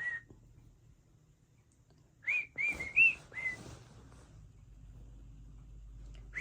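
Cockatiel giving short, arching whistled chirps: one at the start, then a quick run of about five some two seconds in.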